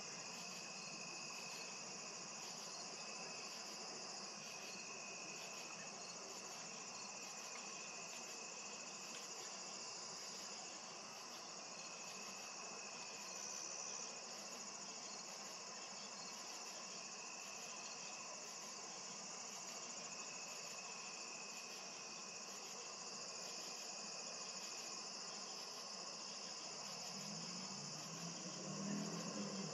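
Insects chirping steadily: a faint, continuous high trill, with a very high pulse repeating about once a second.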